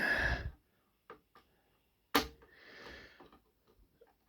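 Small plastic Lego pieces clicking as the mech's legs are fitted onto its body, with one sharp snap a little over two seconds in. A short breathy noise at the start and a soft hiss after the snap.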